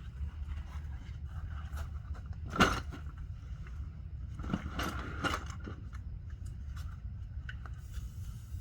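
Sharp metallic knocks and scrapes of tools working on a car's CV axle: one loud knock about two and a half seconds in, and a few more around five seconds, over a steady low rumble.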